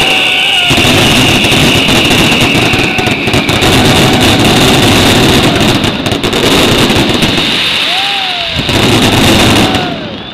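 Mascletà firecrackers and fireworks going off in a dense, continuous barrage of bangs and crackling, with a few whistling glides. The barrage thins out near the end.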